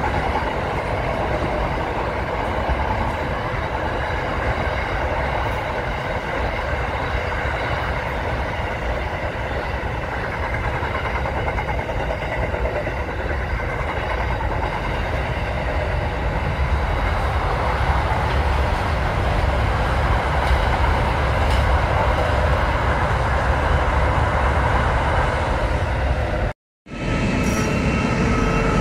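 Freight train container wagons rolling past, a steady rumble of wheels on the rails that grows a little louder in the second half. Near the end the sound cuts out for a moment, then another train's running noise follows with a steady tone in it.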